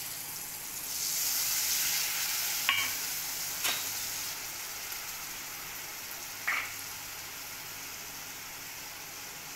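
Tomato-and-spice masala sizzling in hot oil in an aluminium kadhai. About a second in the sizzle surges louder as a little water goes in, then slowly settles. Two sharp clicks come a second apart near the middle.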